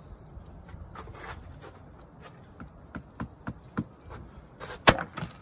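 Steel machete chopping into a tin can of preserved food on a plywood board: a series of sharp knocks and metal clinks, the loudest about five seconds in.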